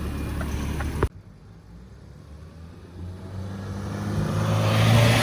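Chevy S10 pickup's exhaust fitted with clip-in turbo whistles: the engine idles, then after an abrupt cut its note builds steadily as the truck accelerates, with a faint hiss on top. The whistles are barely audible.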